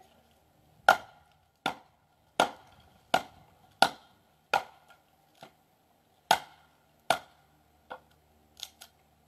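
Kindling being chopped on a chopping block: a steady run of about ten sharp chops into wood, roughly one every three-quarters of a second, the last few lighter.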